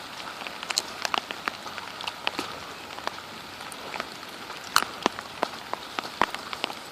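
Steady rain falling, with many irregular sharp ticks of drops striking close by.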